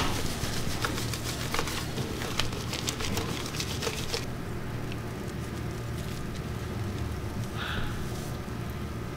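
Hands working shampoo lather into a wet Persian cat's long coat, giving a wet squishing with fine crackling of foam for about the first four seconds, then quieter. A brief scratchy rub near the end, over a steady low hum.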